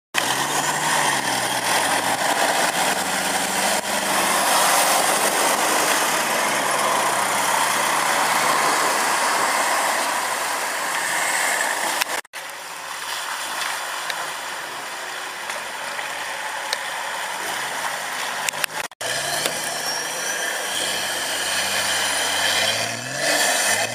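Off-road 4x4 engines revving up and down as a Range Rover, then a Nissan Patrol, drive through mud, under a steady hiss. The sound breaks off abruptly twice, about twelve and nineteen seconds in.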